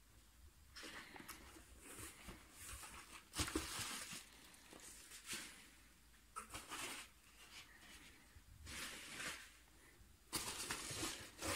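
Hands handling packing material in a cardboard box: irregular rustling, scraping and crinkling as a foam sheet is lifted and packing peanuts are shifted, louder for the last second or so.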